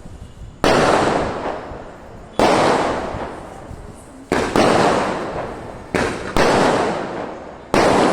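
Aerial firework shells bursting in the sky one after another: about six sharp bangs, each followed by a long rolling echo that fades over a second or so.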